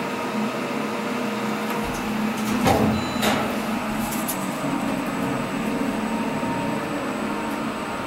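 Steady hum inside an elevator car, with a single knock about two and a half seconds in and a faint high whine setting in around the middle.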